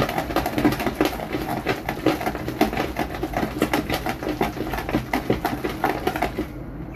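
Spatula stirring a runny batter of flour, water and oil in a plastic mixing bowl: quick, irregular wet scraping and slapping strokes, several a second, easing off near the end.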